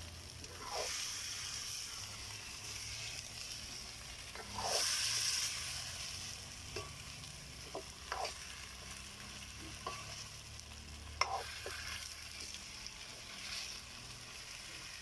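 Bananas cooking in a pot with tomatoes, sizzling steadily while being turned with a spoon. The sizzle swells louder twice as the food is turned, and a few sharp knocks of the spoon against the pot come in the second half.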